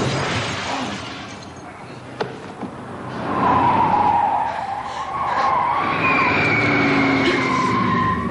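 Car tyres squealing on a smooth concrete garage floor as a car is driven in hard, a long high squeal that starts about three seconds in.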